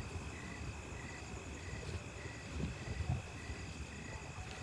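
Crickets chirping: a steady high trill with a pulsing chirp repeating about three times a second, over a low rumble with a couple of louder low thumps about three seconds in.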